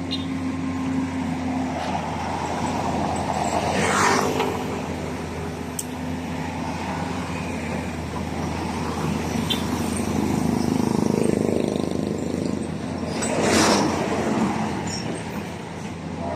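Truck running down the road with a steady low engine hum and road noise. Two louder rushing swells come through, about four seconds in and again near the end.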